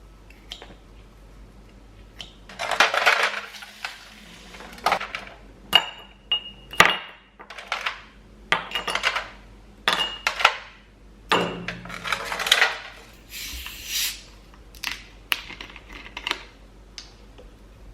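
Dishes and utensils clinking and clattering: a string of knocks, clinks and short scrapes, a few of them ringing briefly.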